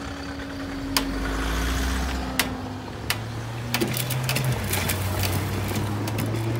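Road vehicle engines running steadily; the engine note changes about three seconds in. Several sharp clicks and knocks come through it.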